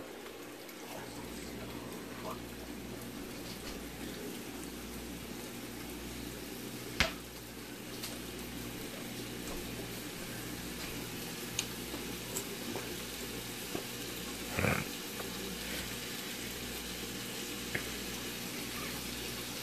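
Sliced sausage sizzling steadily in oil in a nonstick frying pan, with a few faint pops and one sharper click about seven seconds in.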